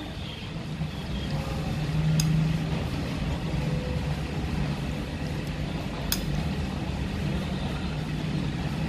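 Metal spoon and wooden chopsticks working through a ceramic bowl of pho noodles, with two sharp clinks against the bowl, about two seconds in and about six seconds in, over a steady low hum.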